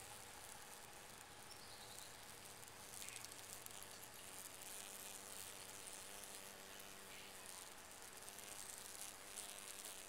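Faint buzzing of a cicada killer wasp's wings as it grips a captured cicada, over a high, steady insect hiss.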